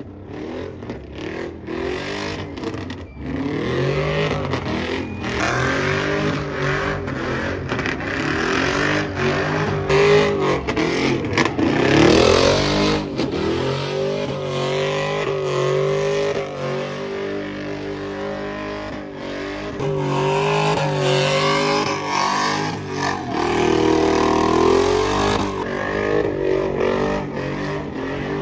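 Pickup truck's engine revving hard during a smoky burnout and donuts, its pitch rising and falling again and again as the driver works the throttle, over the hiss of spinning tyres.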